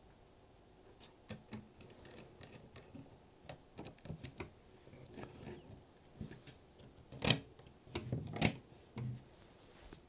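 Faint, scattered clicks, taps and scrapes of a laptop's copper heat-pipe heatsink being set onto the motherboard and its screws turned with a small precision screwdriver. Two sharper clicks come about a second apart in the second half.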